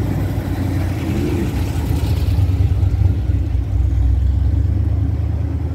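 Corvette V8 engines running at low speed as the cars roll past in a line, a steady low exhaust note that grows a little louder about halfway through as one passes close.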